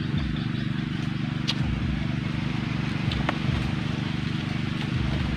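A steady low motor hum, with a few sharp clinks of a metal spoon against a steel bowl, the clearest about one and a half seconds and three seconds in.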